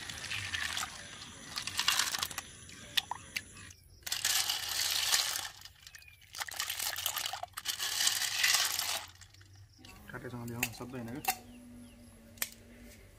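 Freshwater snails being stirred and scooped by hand in a steel bowl of water while they are washed: shells clattering against each other and the bowl, with water sloshing, in four bursts, the first the longest.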